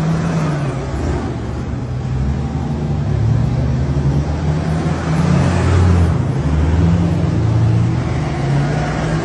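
Convoy of military armoured vehicles and jeeps driving past one after another, their engines running steadily and getting loudest about five to seven seconds in as a vehicle passes close.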